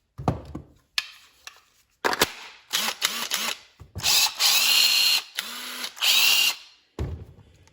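Cordless drill triggered in three short spurts, each winding up, then run twice for about a second at a time at steady speed, after a few handling knocks.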